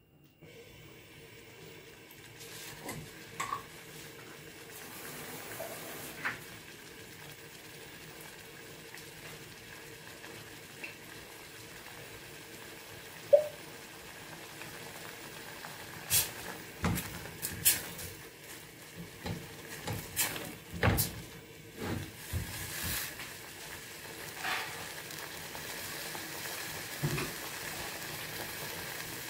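Thick tomato sauce simmering in a stainless steel saucepan over a gas burner, a steady bubbling hiss. In the second half the spatula is worked in the pot, giving a run of short knocks and scrapes.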